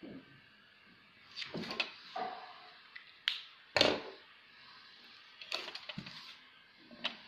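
Knocks, clicks and light scrapes of drawing instruments handled on paper over a desk, as a plastic ruler is set down and a compass is picked up and worked. The loudest knock comes about four seconds in.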